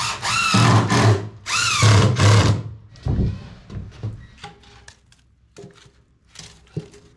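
Power drill driving screws into plywood in two bursts, each spinning up and winding down, followed by a few light knocks.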